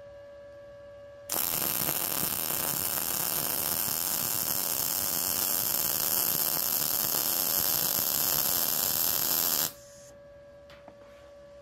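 Arccaptain MIG 200 welder running a MIG arc on 1/16-inch thin-wall mild steel square tubing at 17.5 volts: a steady crackle that starts about a second in and cuts off sharply after about eight seconds, when the trigger is released. A quiet steady hum is heard before and after the weld.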